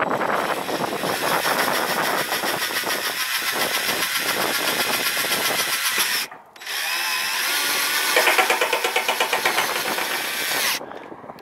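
Cordless drill driving roofing screws through a steel ridge cap, in two runs with a short break about six seconds in. The second run turns into a rapid, even pulsing near its end.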